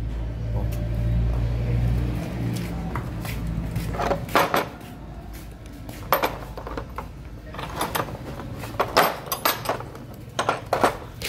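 Metal parts and hand tools clinking and knocking, a dozen or so separate sharp clanks, as a power steering pump is taken apart. A low rumble runs through the first two seconds or so.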